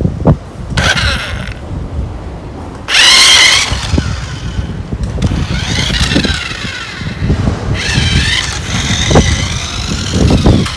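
1:16-scale remote-control racing car driving in four bursts: a high whine that glides up and down in pitch, loudest from about three seconds in, with light knocks underneath.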